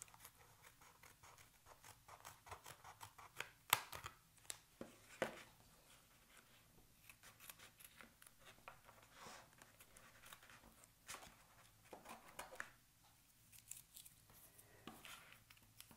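Scissors snipping through washi tape, heard as faint, irregular small snips and clicks, with a couple of sharper cuts about four and five seconds in.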